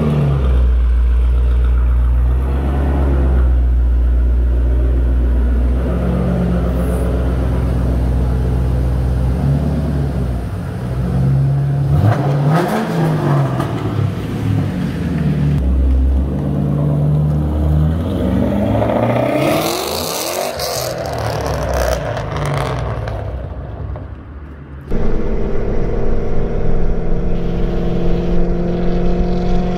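Supercharged 4.6-litre V8 of a 2008 Roush 427R Mustang through a new axle-back exhaust: running steadily at first, then revving up and down and fading away, before a sudden cut to another clip of the car accelerating with its pitch slowly rising.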